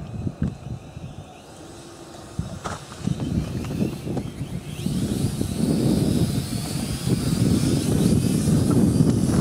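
JJRC H8C mini quadcopter flying overhead, its propellers whining with a wavering pitch and a low rumble under it. It grows louder from about halfway in as the quad comes closer.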